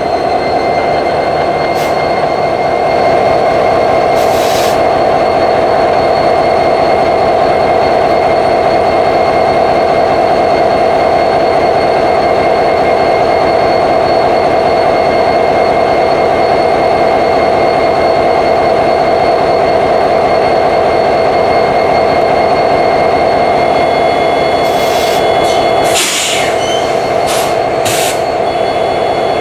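EMD 16-710 diesel prime mover of a locomotive running steadily, a loud drone with a steady high whine over it. Near the end, a few sharp clicks or knocks sound over the engine.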